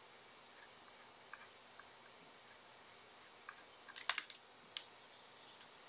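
Small paintbrush dabbing and scrubbing on textured paper: faint light strokes, then a short run of louder scratchy strokes about four seconds in.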